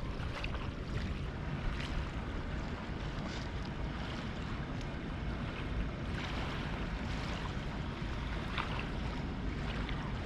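Wind blowing on the microphone over a steady wash of surf.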